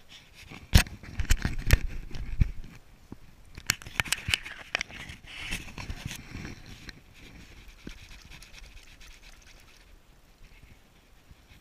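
Close handling noise as a caught fish is taken out of a landing net by hand: knocks, clicks and rubbing against the body-worn camera, busiest in the first half, then quieter.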